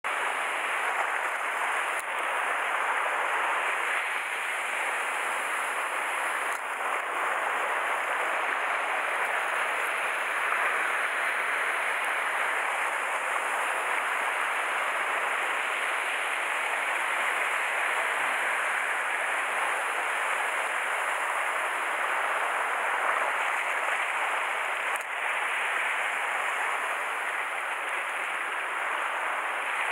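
Steady rush of sea water surging and foaming against the shore rocks.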